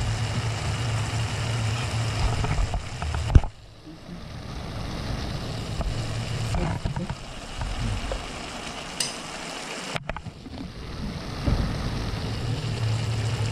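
Induction hotplate humming under a frying pan, with food sizzling faintly in the pan. About three and a half seconds in, the hum cuts off with a click as the hotplate switches off, then comes back near the end. A light clink about nine seconds in.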